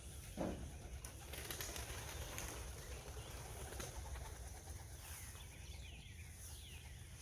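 Young pigeons cooing faintly, with a few wing flaps, and a few high falling chirps from another bird near the end.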